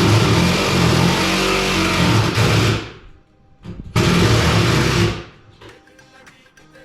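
Power drill driving wood screws into a wall stud: one run of about three seconds, a pause of about a second, then a shorter run of about a second.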